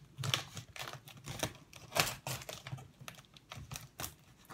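Packing tape being cut and peeled off a cardboard shipping box: irregular short scrapes and crackles, the loudest about two seconds in.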